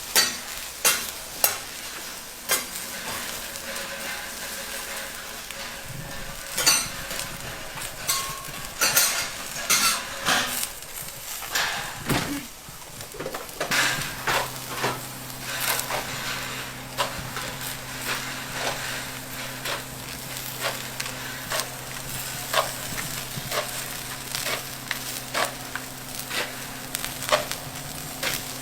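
Food sizzling as it fries, with metal utensils repeatedly clicking and scraping against the cooking surface. A steady low hum joins about halfway through.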